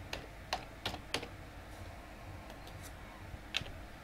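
Computer keyboard keystrokes typed one at a time: four crisp clicks in the first second or so, a few fainter ones after that, and one more clear click near the end.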